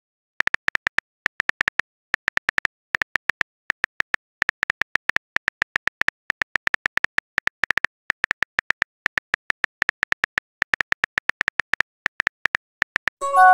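Phone keyboard typing sound effect: a fast run of short clicks, one per keystroke, in uneven bursts with brief pauses. A short message-sent chime starts at the very end.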